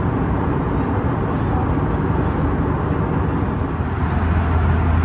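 Steady cabin noise of an Airbus A320 in cruise: a constant roar of engines and airflow, with a deeper low hum growing louder about four seconds in.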